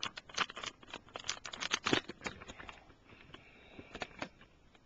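Plastic Lego bricks clicking and rattling as the machine's top pieces are pulled off and handled. A busy run of sharp clicks fills the first few seconds, thinning to a few scattered ones near the end.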